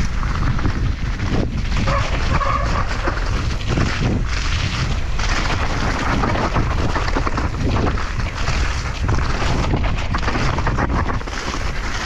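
Loud wind buffeting the microphone as a low, steady rumble, with frequent short knocks and rattles.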